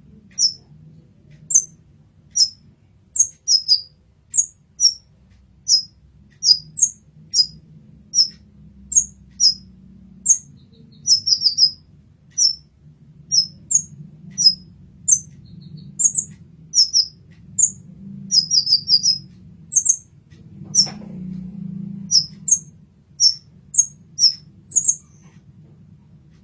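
Kolibri ninja, a small Leptocoma sunbird, calling in a long series of short, high, sharp chirps, about one or two a second, sometimes doubled or in quick runs. A faint low hum lies underneath, and a single knock comes about two-thirds of the way through.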